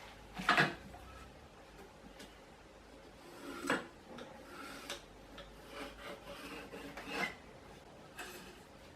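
A pencil scratching on a length of timber, marking out a cutting line in a handful of short strokes, the loudest about half a second in.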